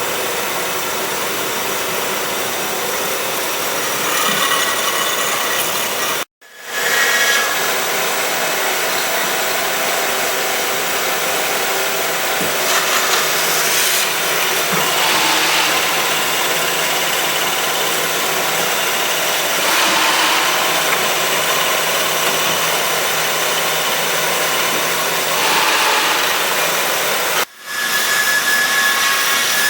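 DoALL DC-280NC horizontal band saw cutting metal: a steady grinding hiss of the blade working through the stock over a low machine hum. The sound cuts out abruptly twice, briefly.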